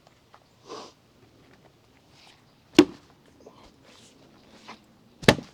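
Splitting axe striking a red oak round twice, two sharp impacts about two and a half seconds apart.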